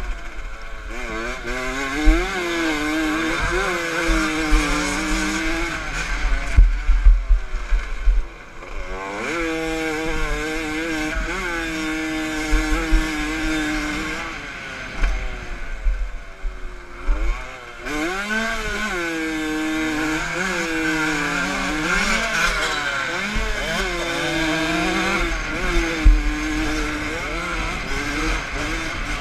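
Aprilia MX 75cc two-stroke dirt bike engine, heard from on board, revving up and down as the rider opens and closes the throttle and changes gear, its note rising and falling every second or two. The engine eases off to a quieter stretch about fifteen seconds in, then pulls hard again, with low rumbling thumps from the bike and track throughout.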